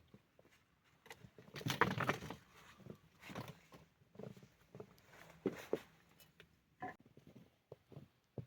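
Irregular crunches and knocks of a person moving about and handling things in snow, with a longer, louder crunching scrape about two seconds in.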